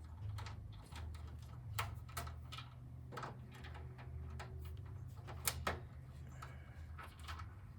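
Irregular sharp metallic clicks and taps of a screwdriver and screws working against a Power Mac G4's metal case and power-supply housing, the loudest click about five and a half seconds in, over a steady low hum.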